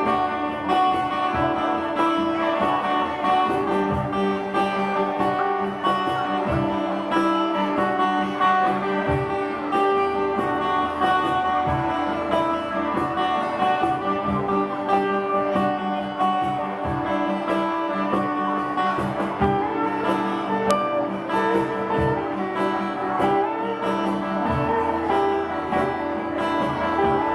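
Live band music with guitar to the fore, sustained chords and notes over a steady beat.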